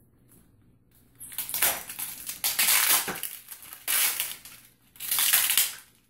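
Wrapping crinkling and tearing as it is cut with a knife and pulled off the grille of a stand fan, in four loud bursts starting about a second in.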